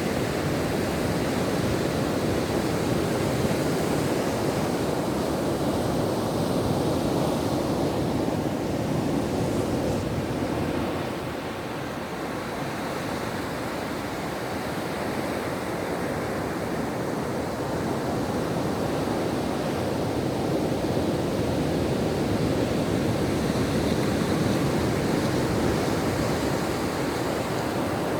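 Ocean surf washing onto a shore: a continuous rush of breaking waves that eases off about eleven seconds in and slowly builds again.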